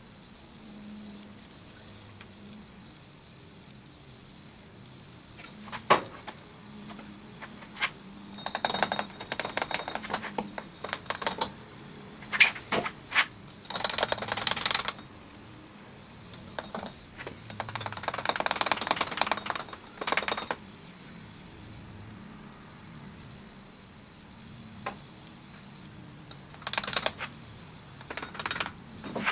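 Sharp metal clicks and taps with several stretches of gritty scraping, as small hand tools and pins work at a sand mold in a metal flask to loosen and lift out the pattern and its plastic gating pieces.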